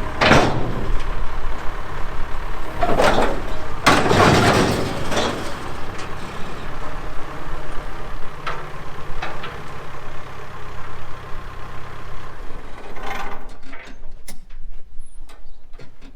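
A vehicle engine running steadily, with loud metal scraping and banging bursts at the start and again about three to five seconds in. The engine cuts out about twelve seconds in, leaving light clinks.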